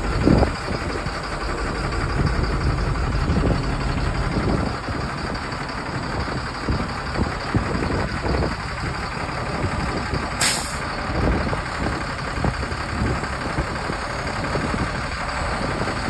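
2007 Freightliner M2 dump truck running steadily while its Rugby SR4016 electric-over-hydraulic hoist raises the dump body, the Caterpillar C7 diesel idling underneath. A short, sharp hiss of air about ten and a half seconds in.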